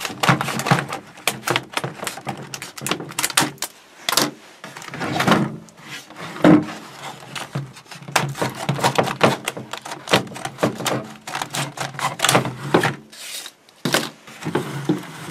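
A rigid clear plastic blister pack being handled and cut open with scissors, with irregular crackling and sharp clicks as the plastic flexes and snaps.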